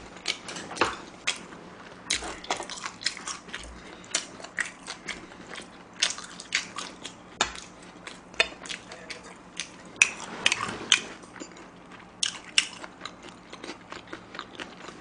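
Close-miked mouth sounds of chewing and sucking on bony chicken feet: an irregular string of wet clicks and smacks. Metal tongs clink in a steel pot partway through.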